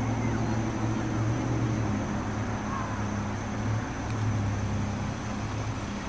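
A steady low mechanical drone with an even background hiss and a faint constant high whine.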